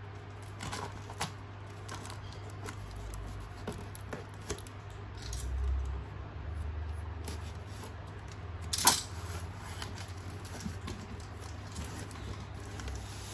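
Hands handling and opening a cardboard box: scattered light taps and scrapes on the cardboard, a low rumble of handling a few seconds in, and one sharp crack about nine seconds in.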